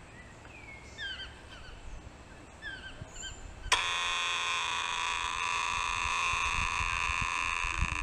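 Small birds chirping in short calls. A little under four seconds in, a loud, steady buzzing drone of cicadas cuts in abruptly and covers everything else.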